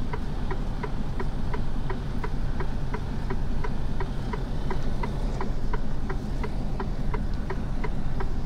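Truck's diesel engine running low and steady while the reversing warning gives a fast, even string of short beeps, about three a second, as the truck backs up.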